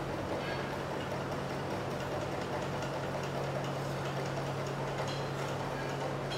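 Steady machine hum: a constant low drone over an even rushing noise, with a few faint ticks now and then.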